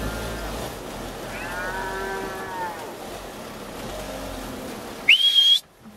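Suckler cattle and calves mooing, one long moo with a bending pitch about a second and a half in, over the low steady rumble of the van's engine. Near the end a short, loud, high-pitched call rises and holds, then cuts off suddenly.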